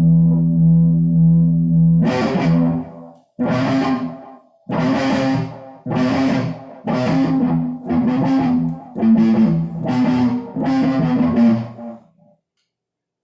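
Guitar playing through effects: a held chord rings out, then a run of separate strummed chords about one a second, stopping shortly before the end.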